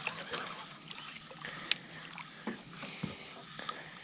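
A hooked largemouth bass splashing at the water's surface as it is reeled in to the boat, with a few scattered sharp splashes and clicks over a soft water wash.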